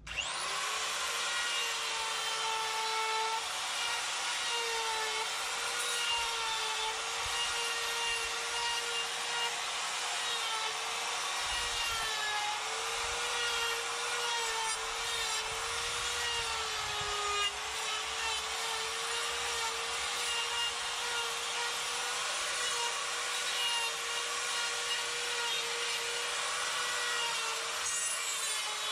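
Electric die grinder with a coarse flame-shaped carbide burr carving wood. It spins up right at the start, then runs with a steady whine whose pitch wobbles and dips slightly as the burr bites into the branches.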